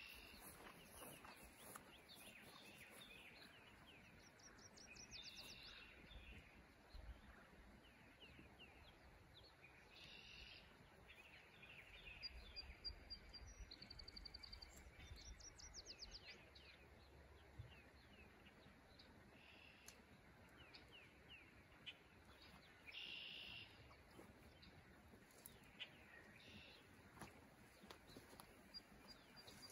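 Faint songbird chirps and quick trills come and go over a near-quiet background, with a few faint knocks.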